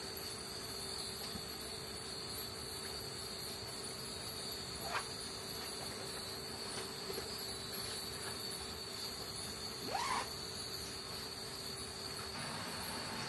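Steady high-pitched drone of insects, with two short rising whistle-like calls about five and ten seconds in.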